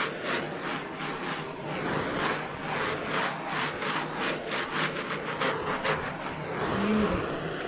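Handheld butane torch flame hissing steadily over wet acrylic pouring paint, with a fluttering pulse several times a second; it cuts off suddenly at the end as the torch is shut off.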